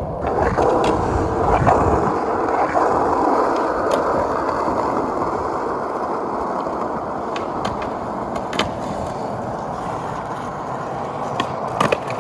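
Skateboard wheels rolling over pavement, a steady gritty rumble with a few sharp clicks along the way; the low rumble is heavier for the first couple of seconds.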